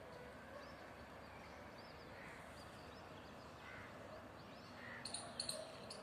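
Faint outdoor background with small birds chirping at a distance, and a few short, sharp, high calls about five seconds in.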